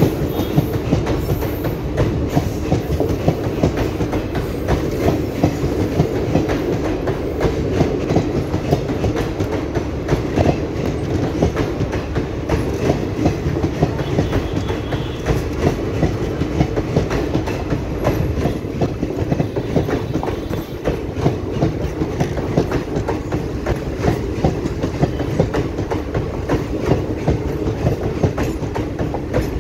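Indian Railways passenger coaches passing close by at speed: a loud, steady rumble with the wheels clattering rapidly over rail joints throughout.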